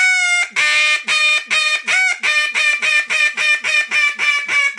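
Duck call blown in a hail call (high ball): a rapid, even string of short, loud quacking notes, about four a second, tapering down in pitch, with a few squeals in it.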